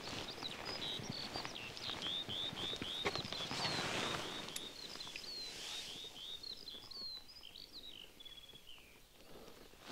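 A small songbird singing a long run of short, falling whistled notes, about three a second, over a faint outdoor rustle; the song thins out near the end.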